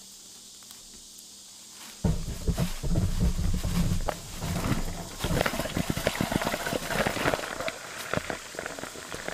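Ice cubes dumped from a bag into a bucket, heard from a GoPro lying at its bottom: about two seconds in, a sudden loud rumbling clatter as the ice lands on and around the camera, then a run of knocks and rattles as the ice and water settle.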